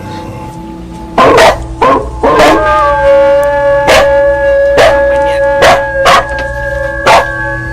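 Temple bell ringing with a long, steady hum, crossed by about eight sharp, irregularly spaced sounds.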